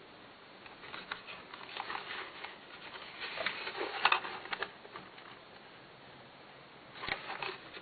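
Handling noise from a small plastic computer-speaker cabinet being picked up and turned over by hand, its cable rustling and scraping, with light clicks and knocks. The clatter is loudest about four seconds in, and a short second burst of clicks comes near the end.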